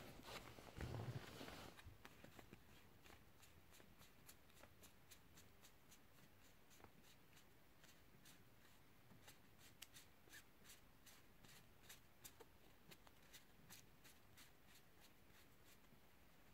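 Faint run of light clicks from a stack of SEGA Dinosaur King cards being flicked through one at a time in the hands, after a louder rustle of handling the stack in the first couple of seconds.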